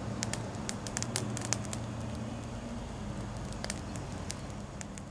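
Newly lit campfire of a tinder bundle and lean-to stick fire lay burning, crackling with sharp snaps and pops that are thickest in the first two seconds, over a low steady hum; the sound fades out near the end.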